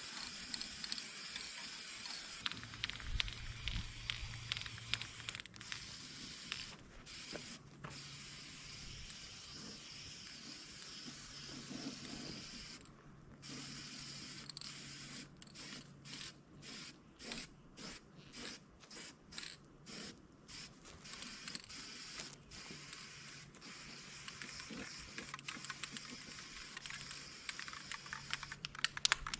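Spray paint hissing as a coat is sprayed on. The spray runs in longer passes, and near the middle it stops and starts in quick short bursts.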